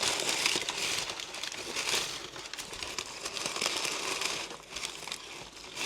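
Packing material being handled and unwrapped by hand: a continuous crinkling rustle with many small crackles.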